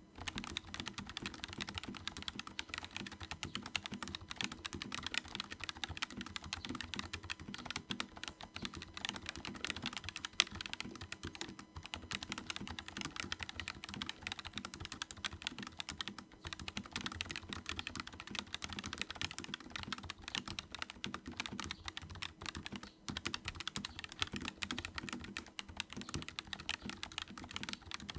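Pulsar PCMK TKL mechanical keyboard, silicone-dampened between PCB and plate, typed on quickly and continuously: a dense, steady clatter of keystrokes, which the reviewer finds surprisingly not too noisy.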